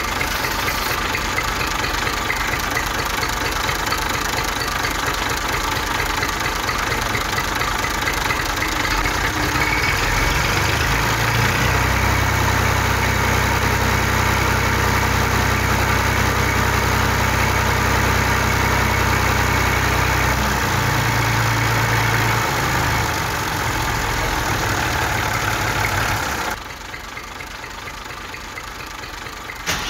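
Tractor engine running steadily. A deeper engine note joins about ten seconds in, and the sound drops off suddenly near the end.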